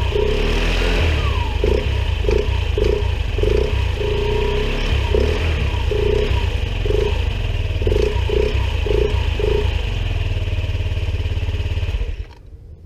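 Honda Zoomer scooter's engine and belt drive running, with about a dozen short blips in the middle stretch. It is being run to check for a reported abnormal noise from the drivetrain.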